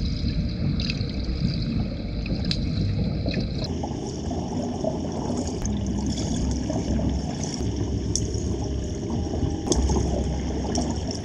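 Muffled underwater sound in a swimming pool: a steady low rumble of moving water with bubbling and scattered small clicks as a person moves through the water.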